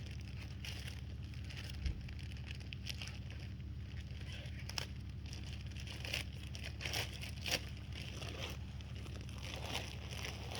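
Scattered crinkling, rustling and scraping as bags of topsoil are handled and the soil is spread into a raised garden bed, over a steady low hum.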